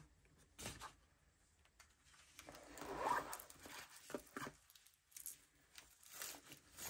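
Soft cloth rustling and handling noises as a watch's fabric wrapping is lifted from its box and unfolded, in short irregular rustles. The loudest rustle comes about three seconds in.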